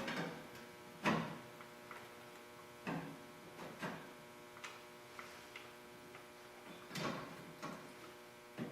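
Steady electrical hum with a handful of short metallic clanks and clicks as a sheet-metal patch panel is handled and clamped with pliers on the truck's bed side; the loudest clank comes about a second in.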